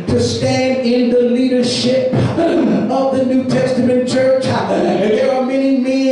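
A male preacher singing through a microphone and PA, holding long steady notes with short breaks between phrases.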